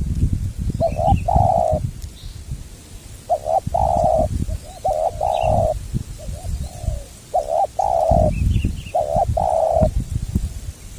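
Spotted dove (tekukur) cooing in repeated phrases, each a short coo followed by a longer held coo, about four times. Faint chirps of small birds and a low rumble of wind are underneath.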